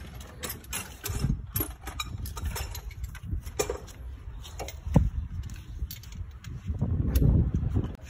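Scattered light clicks and metal clinks of engine parts being handled, with a sharp knock about five seconds in. A low rumble of the hand-held phone being moved comes and goes, loudest near the end.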